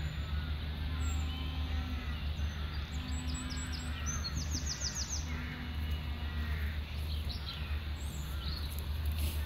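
Small songbirds chirping repeatedly, with a quick high trill about four to five seconds in, over a steady low rumble.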